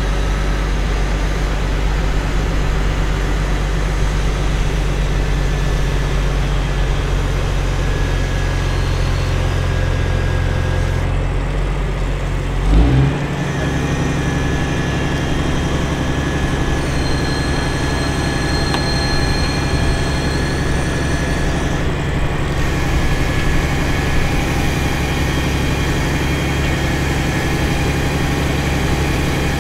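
A large engine running steadily. About 13 seconds in there is a brief louder surge, the engine's note changes, and it then runs on steadily.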